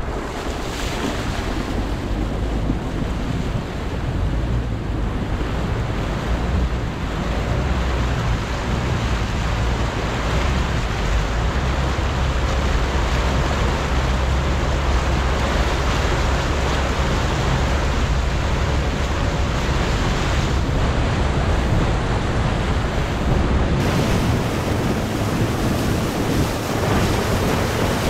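Loud, steady wind noise buffeting the microphone over a low rumble.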